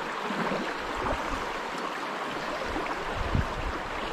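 Shallow stream water running steadily over a riffle, with a couple of brief low thumps, the clearest about three and a half seconds in.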